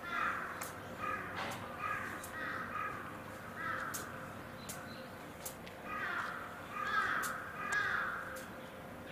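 Crows cawing, a run of short harsh calls during the first four seconds and another from about six to eight seconds in, with a few faint sharp clicks between them.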